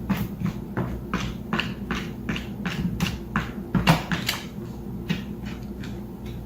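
A run of light taps, about three a second, loudest about four seconds in and thinning out near the end.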